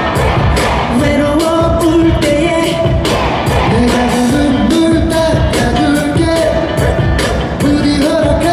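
A pop dance song played loud over a concert sound system, with a steady drum beat and a sung melody.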